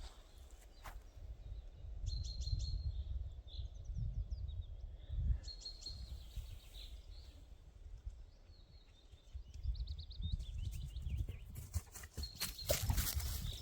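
Songbirds calling and singing in a spring forest: short high notes repeated several times, with some trills, over a low, gusting rumble of wind.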